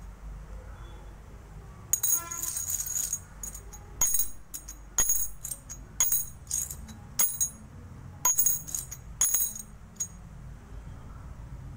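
Metal coins clinking and scraping as a large copper coin is handled against the surface and the small coins: a dozen or so short ringing clinks between about two and ten seconds in.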